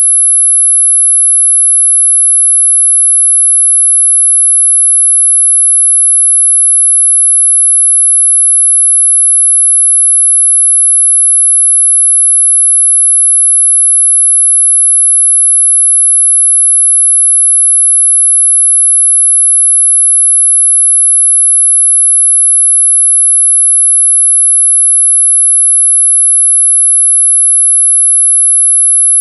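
Pure electronic sine tone at about 11 kHz, held steady and unbroken at a constant level: a high-pitched tinnitus masking tone.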